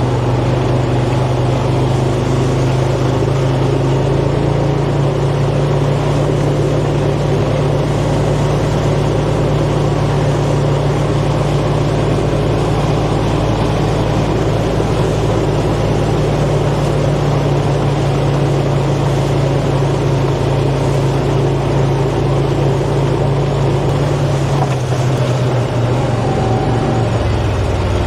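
A farm vehicle's engine running steadily with a deep, even hum, shifting slightly in pitch near the end.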